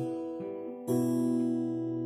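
Instrumental guitar music: a chord struck about a second in and left to ring, slowly fading.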